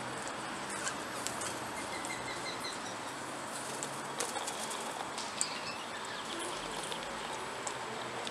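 Outdoor aviary ambience: a steady background hiss with faint runs of bird chirps about two to three seconds in and a few short soft knocks, perhaps wings or feet on a perch.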